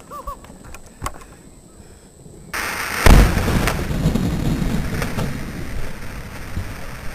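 Flour dust explosion: a sudden rush of noise, then a heavy boom about three seconds in, followed by a long rumble that slowly dies away.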